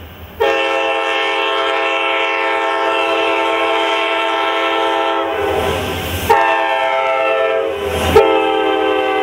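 Diesel locomotive air horn on a CSX SD40-2 sounding for a grade crossing: a long blast of about five seconds, a shorter one, and a third starting near the end as the locomotive passes, its pitch dropping with the Doppler effect. Between blasts the rumble of the passing locomotive shows through.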